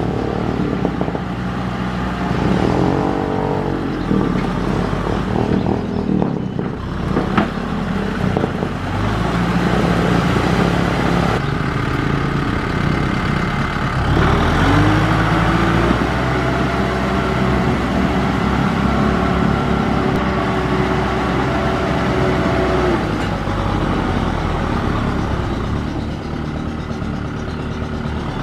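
Kubota M6040SU tractor's diesel engine working under load as it drags its rotary tiller through flooded paddy mud, the engine note rising and falling a few times as the revs change.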